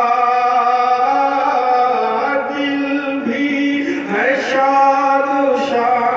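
A man's voice chanting melodically, holding long sustained notes that slide from one pitch to the next.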